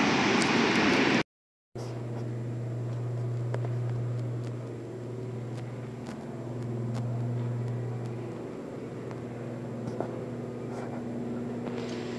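A loud rush of noise cuts off about a second in. Then comes a steady low mechanical hum with a constant low tone, like a building's ventilation or other machinery running.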